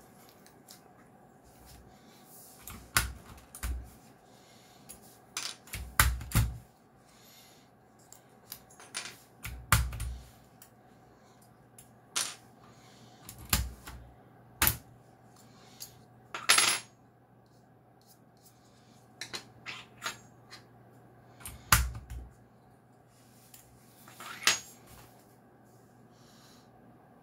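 Plastic keycaps being pulled off a mechanical keyboard and set down on a desk: irregular clicks and clatters every second or two, some with a dull knock.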